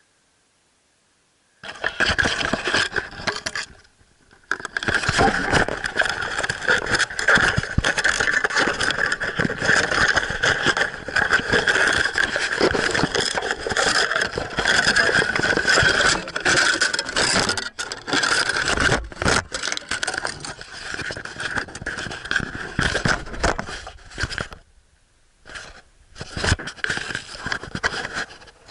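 Loud scraping and rustling handling noise from the camera being moved about among grapevine leaves, rubbing against its microphone. It begins about two seconds in, breaks off briefly at about four seconds and again near the end.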